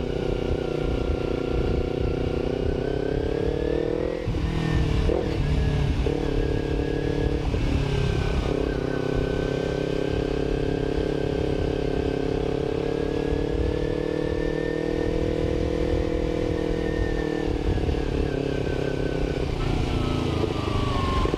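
Kawasaki Ninja 250R parallel-twin engine heard from the rider's seat, pulling up in revs, shifting up a gear about four seconds in, then holding a steady cruise and easing off near the end. A low rumble of wind and road noise runs underneath.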